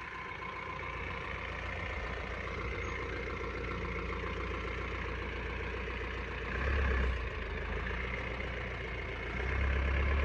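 Mahindra Bolero Camper's diesel engine running at low revs as the pickup crawls through a dirt pit in four-wheel drive, with two louder low swells, one past the middle and one near the end.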